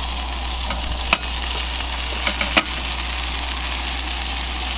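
Beef burger patties sizzling in a skillet on a portable gas burner, a steady frying hiss. A few sharp pops land about one second and two and a half seconds in.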